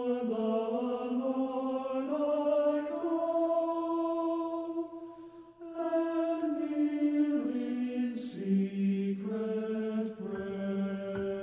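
Choir singing a slow hymn in long held notes that move in steps from chord to chord, with a short break between phrases about five seconds in.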